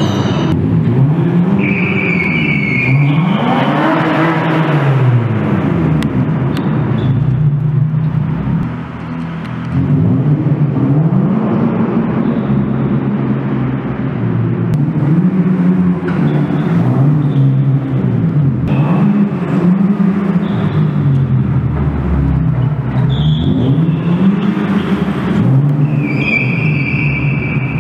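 Car engine revved up and down over and over as the sedan is driven hard around the garage, with a few short high tyre squeals, one near the start and one near the end.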